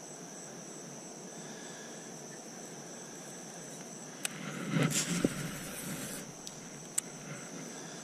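Crickets chirring in a steady, high drone. A short burst of noise with a couple of clicks comes about halfway through.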